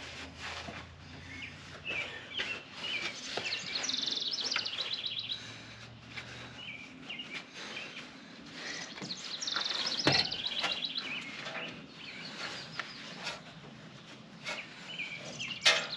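Songbirds chirping, with a fast trill repeating several times, over scattered clinks and knocks of tools on metal; one louder knock comes about two-thirds of the way through and a sharp click near the end.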